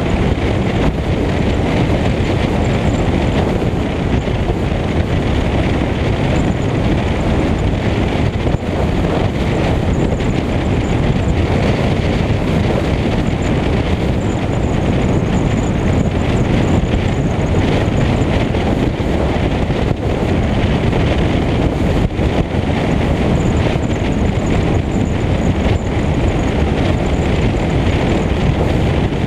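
Steady rush of wind on the microphone over the rumble of tyres on the road from a Lincoln Mark VIII cruising along, picked up from outside the car over its hood.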